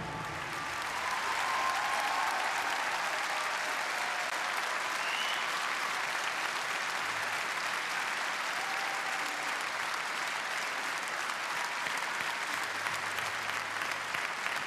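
Large audience applauding steadily, with a few faint voices calling out over the clapping.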